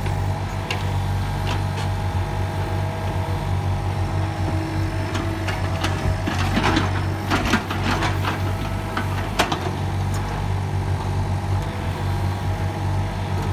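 Yanmar 35 mini excavator's diesel engine running steadily as the bucket digs into earth and rock. In the middle, soil and stones scrape and clatter against the bucket in a run of sharp knocks, the loudest about nine and a half seconds in.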